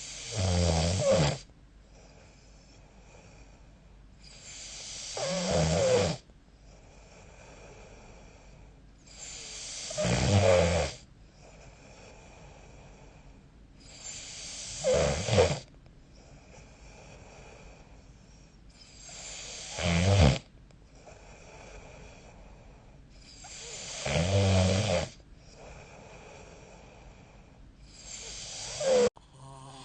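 A sleeping person snoring: seven loud snores at a steady pace of about one every four and a half to five seconds. Each builds over a second or so and stops abruptly, with quiet breathing between them.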